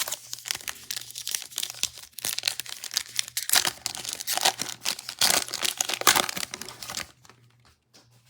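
Trading card pack wrapper being torn open and crinkled in the hands: a dense run of crackling that stops about seven seconds in.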